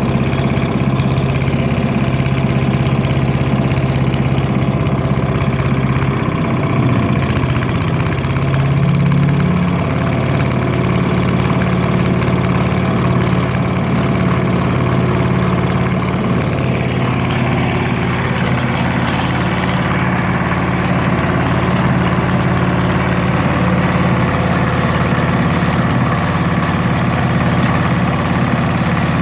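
Wood chipper's small engine running steadily on compressed biogas fed directly into the carburettor. Its speed picks up between about six and ten seconds in and holds at the higher pitch.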